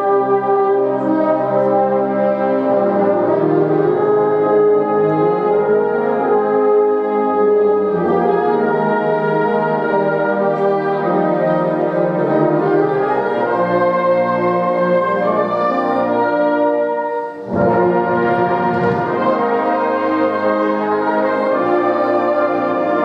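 Brass ensemble music playing sustained chords, with a brief break about seventeen seconds in before it resumes.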